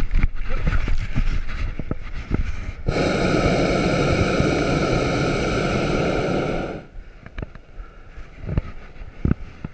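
Hot air balloon's propane burner firing in one steady blast of about four seconds, starting about three seconds in and cutting off sharply. Before and after it, scattered knocks and bumps against the wicker basket.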